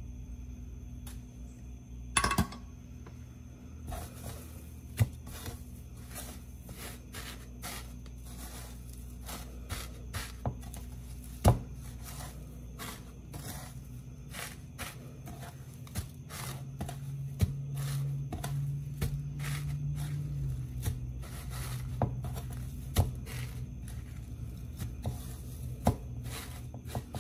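Fingers pressing and turning chicken tenders in panko breadcrumbs in a nonstick pan: scattered light clicks, taps and scrapes against the pan and crumbs, with a few sharper knocks, over a steady low hum.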